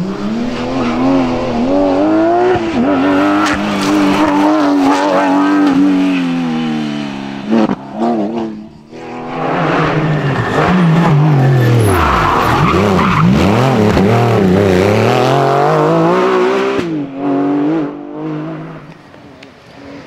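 Porsche 911 GT3 rally cars' flat-six engines revving up and down through the gears as they pass, one after another. The sound dips briefly about eight seconds in before the next car comes through.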